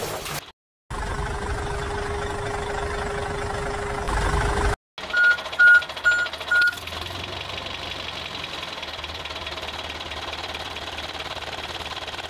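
Tractor engine sound running steadily, broken by two abrupt cuts, with a short loud burst at the start. Four short, loud, high beeps come evenly spaced about five to seven seconds in.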